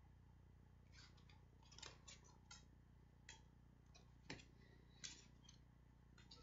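Faint, irregular plastic clicks and taps as compact discs are handled and set onto a stack of CDs, about eight short clicks over several seconds.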